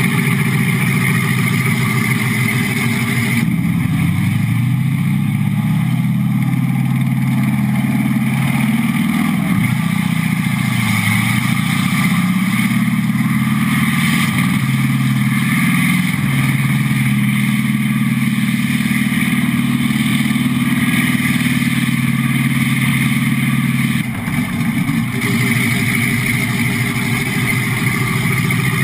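Simulated tank engine sound from the electronic sound module of a 1/6-scale RC Sherman tank, played through its onboard speaker. It runs steadily, shifts to a higher driving note about three and a half seconds in, wavers up and down in pitch while the tank moves, and drops back to a lower note about 24 seconds in.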